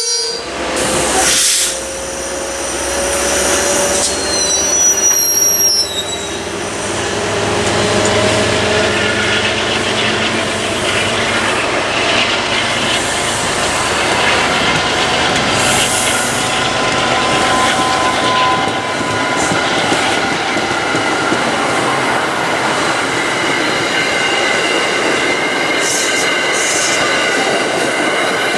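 MBTA commuter coaches, single-level and bi-level, rolling past at close range: a steady rumble and clatter of wheels on rail, with thin wheel squeal tones held over it.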